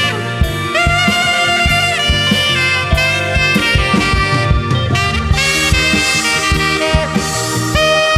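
Live rock band playing an instrumental section: a saxophone solos in long held notes, sliding up into one about a second in, over a steady drum beat, bass and keyboards.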